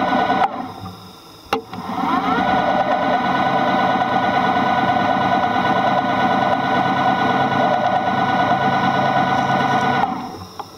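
Steady whine of a small motor heard underwater. It cuts out about half a second in, a sharp click follows, and it spins back up with a rising pitch about two seconds in, running evenly until it fades near the end.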